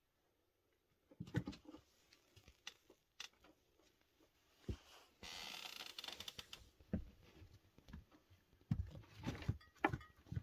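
Scattered knocks, taps and rustling of things moving inside a wooden cabinet, with a dense rustling stretch lasting about a second and a half a little after five seconds in and a cluster of knocks near the end.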